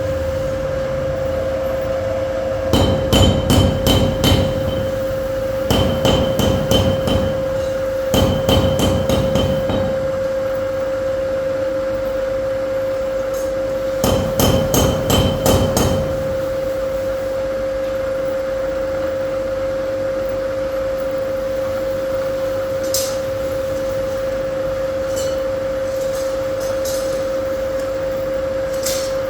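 Manual milling machine running with a steady hum, broken by four quick runs of sharp metal taps, about four a second, each with a ringing note. A few fainter clicks come near the end.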